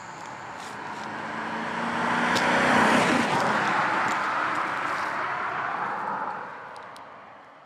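A BMW 740iL's V8 sedan driving past: engine and tyre noise swell to their loudest about three seconds in, then fade away.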